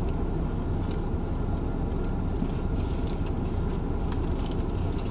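Steady low rumble of a car with its engine running, heard from inside the cabin, with a few faint ticks over it.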